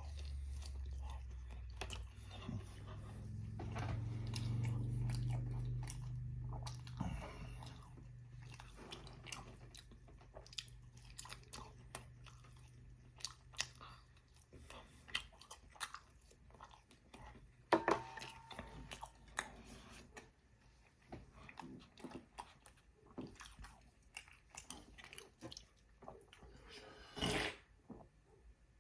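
Close-miked chewing and biting into a battered fried chicken strip, with many short wet mouth clicks and smacks. A low drawn-out sound runs under it for the first several seconds.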